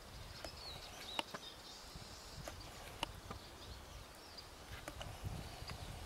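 European goldfinches twittering faintly in high, thin chirps over a low rumble, broken by a few sharp clicks, the loudest about one and three seconds in.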